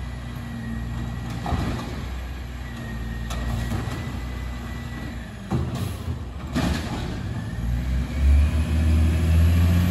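Garbage truck engine running as the truck approaches slowly, growing louder over the last couple of seconds. Two brief sharp noises come in the middle.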